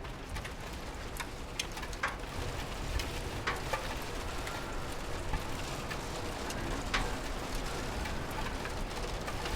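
Steady rain falling against a window, with scattered louder drops striking close by.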